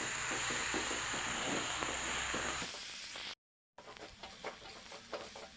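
Food sizzling in a frying pan while a spatula stirs and scrapes the oncom and leunca mixture, as the little water added cooks off. There is a brief dropout a bit past the middle. After it the sizzle is fainter and the quick scraping strokes of the spatula against the pan stand out.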